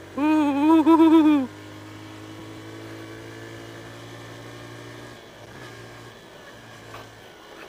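Honda ZB50's small four-stroke single-cylinder engine running steadily as the motorcycle is ridden, its note changing about five seconds in. Near the start a loud wavering tone rises and falls for about a second, louder than the engine.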